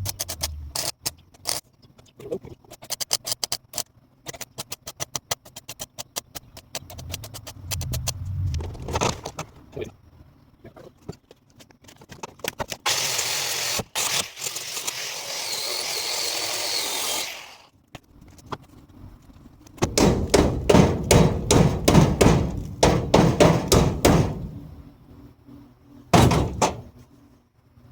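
Metal repair work on a truck door hinge: rapid sharp clicking, then a steady hiss for about five seconds midway, then a quick run of loud knocks like hammer blows near the end.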